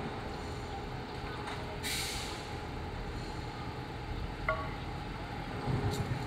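Heavy truck engine running steadily in a low rumble, with a short hiss about two seconds in and a brief high chirp a couple of seconds later.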